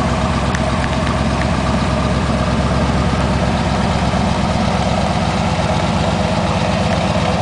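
The Corvette's 1972 LT-1 350 V8 idling steadily through its side exhaust.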